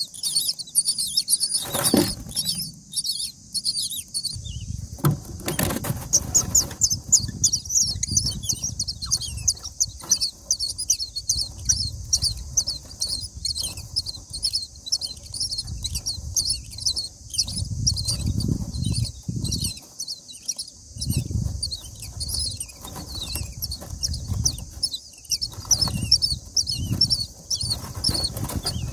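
Common myna nestlings begging: a rapid, unbroken stream of short, high, shrill cheeps as the hungry chicks gape to be fed. Underneath are low rumbles and a couple of sharp knocks near the start.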